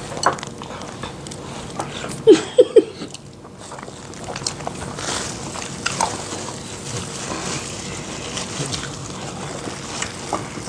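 Close-up eating sounds of fufu and soup: wet mouth noises, slurping and swallowing with scattered small clicks, and three short, loud mouth sounds a little over two seconds in.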